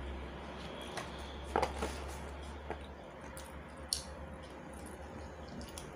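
Eating sounds close to the microphone: a few short wet smacks and clicks from a mouth biting into and chewing a steamed chicken siomay dumpling, over a low steady hum.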